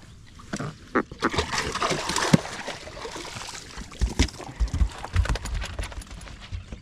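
Water splashing and sloshing in a dense stretch over the first few seconds, followed by several dull low thumps.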